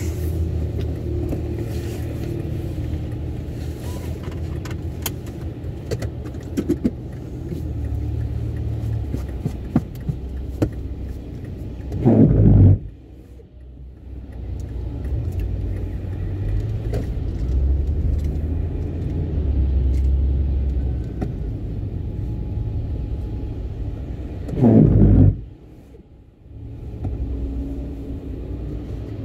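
A car driving slowly in traffic, heard inside the cabin: a steady low rumble with scattered light clicks. Twice, about twelve seconds in and again near the end, a brief loud low burst, each followed by a moment of quieter sound.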